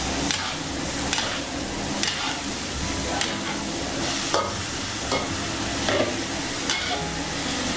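Vegetables and meat sizzling as they stir-fry in a metal wok, with a long metal spatula scraping and knocking against the wok about once a second.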